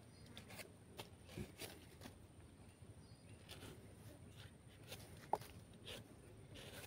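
Near silence: faint outdoor background with scattered small clicks and one brief sharp sound a little past five seconds in.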